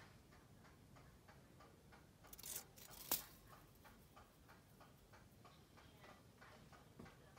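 Near silence with faint, regular ticking. A short rustle comes about two and a half seconds in, followed by one sharp click, the loudest sound in the stretch.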